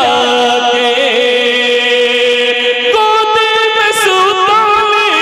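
A man singing a naat solo, holding long drawn-out notes with small wavers, the pitch shifting to a new held note about three seconds in.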